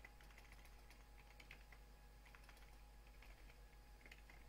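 Faint typing on a computer keyboard: irregular runs of light keystrokes over a low steady hum.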